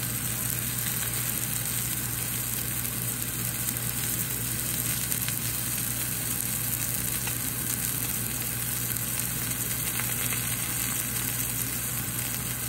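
Swordfish steak frying in oil in a cast-iron skillet: a steady sizzle, over a low steady hum.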